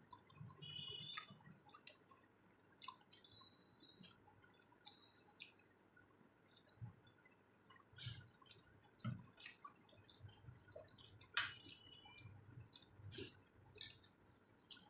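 Faint eating sounds: soft wet chewing and mouth noises while eating rice with dal and mashed potato, with scattered small clicks throughout.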